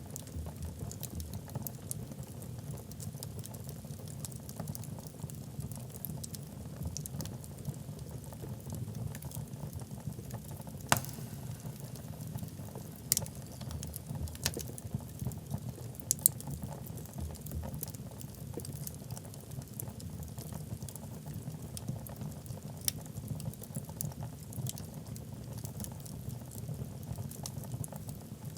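Wood logs burning in a fireplace: a steady low rumble under scattered soft crackles and pops, with a few sharper pops in the middle.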